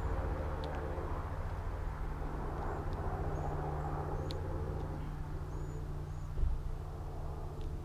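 Steady low mechanical drone with a couple of held low tones, with a low thump about six and a half seconds in. Faint, short, high bird chirps sound over it now and then.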